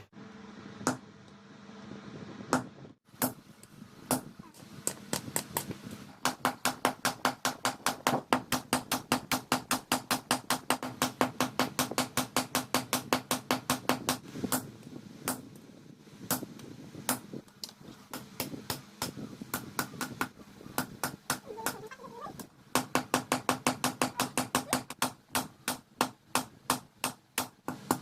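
Hammer blows on steel forged on an anvil, each strike ringing. They come in fast runs of about three blows a second, with slower, scattered blows between the runs.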